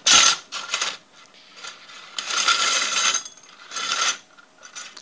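The cable spool of a Leon Paul-style upright fencing reel being twisted and worked in its housing, giving a series of scraping, rattling mechanical bursts with a faint metallic ring. There are two short bursts at the start, a longer one of about a second in the middle and a short one near the end.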